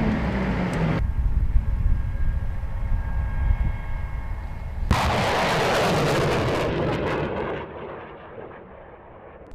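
Rocket launch from an M270 Multiple Launch Rocket System: a sudden loud roar starts about five seconds in, holds for a couple of seconds, then dies away. Before it, the tracked launcher runs for about a second, and then there is a low rumble.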